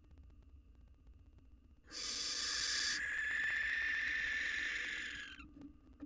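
Barn owl giving one long, harsh screech, starting about two seconds in and lasting about three and a half seconds, its upper hiss thinning out partway through.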